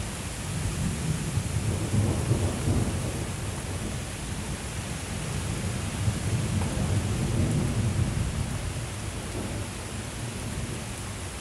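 Heavy thunderstorm rain hissing steadily while thunder rumbles low, swelling a couple of seconds in and again past the middle.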